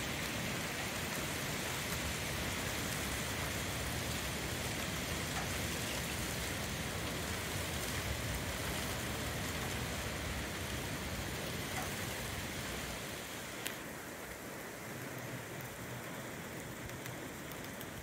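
Heavy rain of a derecho thunderstorm falling steadily, a dense even hiss. It eases a little about three-quarters of the way through, just after a short click.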